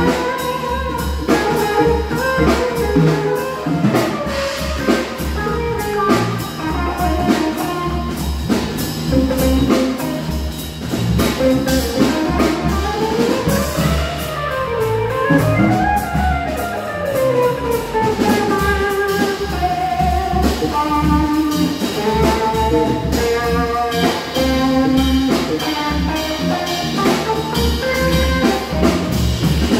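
Live jazz: an electric guitar solos over drums and electric bass, playing a melodic line that sweeps up and down in long runs about halfway through.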